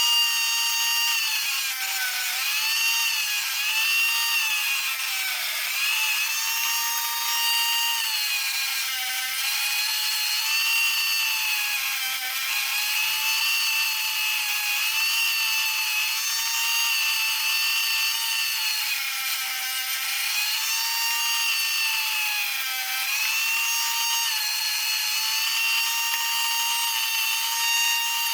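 A small high-speed power tool, likely a rotary tool, running continuously as it sands down plastic to thin it. It makes a high-pitched whine that repeatedly dips in pitch and recovers as the tool bears on the work.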